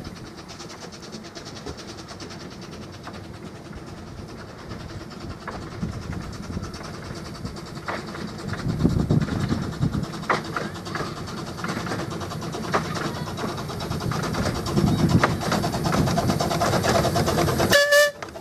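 Small narrow-gauge steam locomotive hauling a train of carriages, coming closer and growing louder as it passes, with short clicks of the wheels over the rail joints. The sound drops out briefly near the end.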